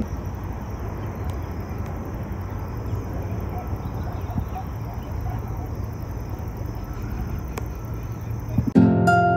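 Outdoor ambience: a steady low rumble with faint high insect chirring. Plucked-string music starts abruptly near the end.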